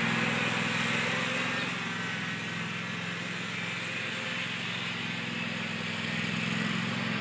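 Tractor engine running steadily, a little quieter in the middle and growing louder again near the end.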